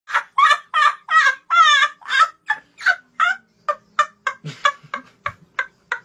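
A boy laughing hysterically in a long string of high, squealing bursts. They come faster and shorter as the laugh runs on, and grow fainter toward the end.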